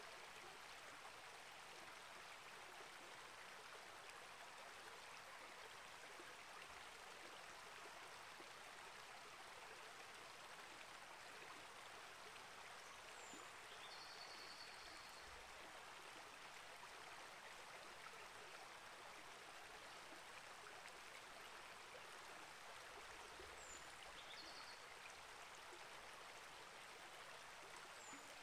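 Small rainforest creek flowing, a faint steady rush of water. A bird gives a few short, high calls about halfway through and again near the end.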